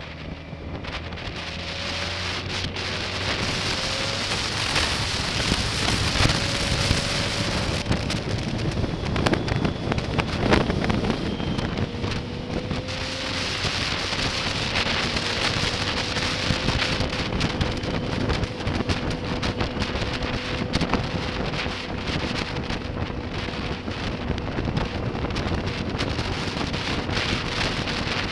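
Wind rushing and buffeting over an action camera's microphone on a moving motorcycle, growing louder over the first two seconds and then staying loud. Underneath, the 2005 BMW K1200S's inline-four engine runs as a faint steady hum.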